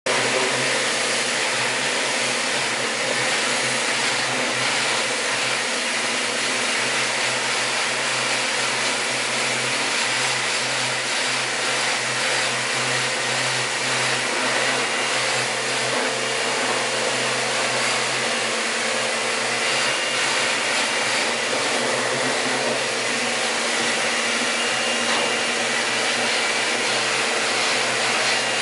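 Pressure washer running steadily, its high-pressure water jet hissing against the enclosure's metal walls and wire mesh, over a steady low motor hum.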